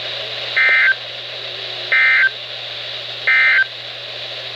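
Weather radio sending the EAS (SAME) end-of-message code, marking the end of the alert: three identical short bursts of warbling digital data tones, each about a third of a second, evenly spaced a little over a second apart. A steady radio hiss and a low hum run underneath.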